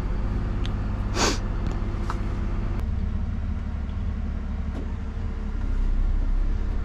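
Dennis Eagle Elite+ refuse truck's diesel engine running steadily, heard from inside the cab, with a short hiss of air about a second in and a few faint clicks. The engine grows a little louder near the end.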